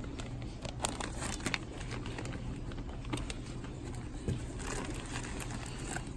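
Plastic fish-shipping bags crinkling and rustling as they are handled and lifted out of a shipping box. Scattered small crackles sit over a steady low hum.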